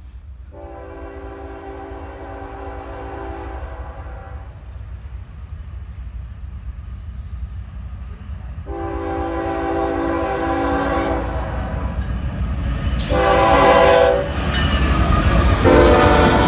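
Norfolk Southern freight diesel locomotive's horn sounding the grade-crossing signal: two long blasts, a short one, and a final long one starting near the end. Under it the low rumble of the approaching train grows steadily louder until the locomotives pass.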